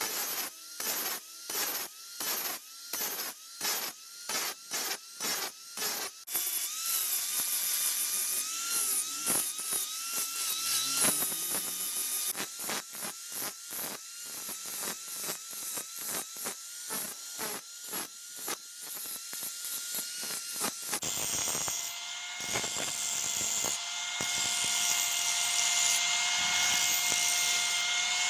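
Tool work: repeated rhythmic strokes, about two a second at first and faster later. About three-quarters of the way through, a steady pitched whine of a small motor takes over.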